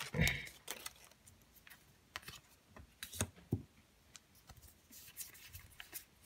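Trading cards and booster-pack packaging being handled: scattered soft clicks and rustles at irregular intervals.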